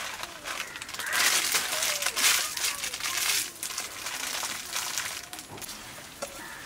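A foil-lined plastic packet being torn open and crinkled by hand. The rustling is loudest from about one to three and a half seconds in, then dies down.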